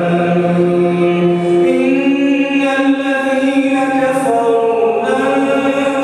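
A man's voice reciting the Quran in the melodic, chanted style, holding long drawn-out notes; the pitch steps up about two seconds in and shifts again near the end.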